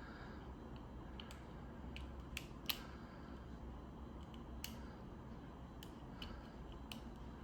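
Faint, scattered light metallic clicks of a lock pick and tension wrench working inside a Chateau disc padlock, with one sharper click about two-thirds of the way through the first half.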